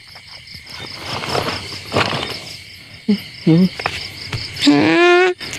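Crickets chirping in a steady pulsing trill, with two short pitched vocal calls about three seconds in and a longer, louder held call near the end.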